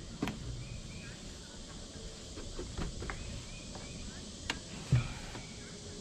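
A few knocks and thumps on wooden deck boards as a person kneels and brushes stain into them, the loudest a dull thump about five seconds in, over faint bird chirps.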